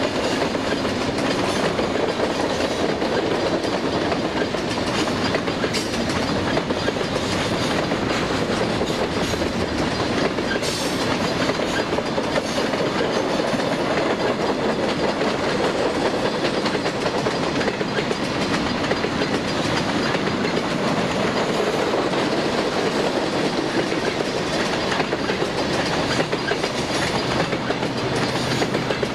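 A long string of freight gondola cars rolling past, their steel wheels running on the rails with a steady rumble and a continuous stream of clicks.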